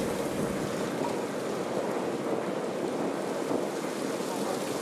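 Steady rushing wind noise on the camcorder microphone.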